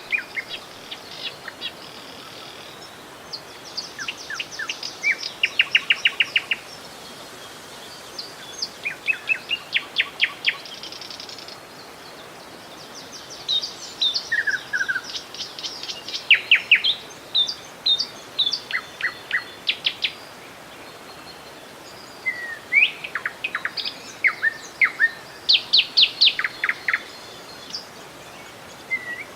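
Songbirds singing in repeated bouts of quick, high chirping trills, over a steady rush of river water.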